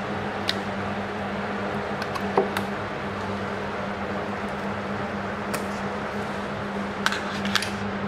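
A few small clicks and taps as a micro-USB cable is unplugged from a portable USB DAC and handled, and a phone's touchscreen is tapped, over a steady low hum.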